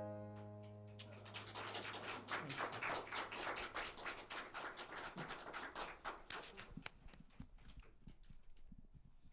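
The last piano chord of a song dies away. A small audience then applauds for several seconds, and the clapping thins and fades out near the end.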